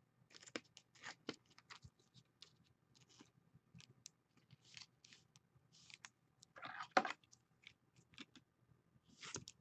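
Trading cards being handled: faint scattered rustles and small clicks of card stock, with a louder rustle ending in a sharp snap about seven seconds in.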